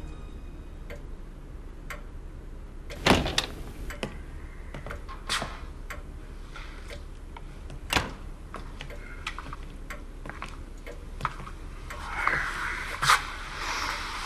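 Quiet room with scattered knocks and steps, the loudest a door-like thump about three seconds in. A soft rustle of clothing near the end as two people embrace.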